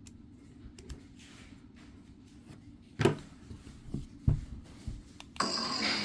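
A few sharp knocks and clicks of a test blade being seated in a lightsaber hilt. About five seconds in, the saber's sound board ignites, and a steady electronic hum with a high tone plays from its speaker.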